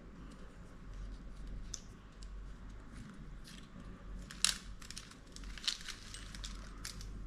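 Plastic packaging and parts of a wiring-harness kit being handled: faint rustling and crinkling, with a few sharp clicks and taps, the loudest about four and a half seconds in.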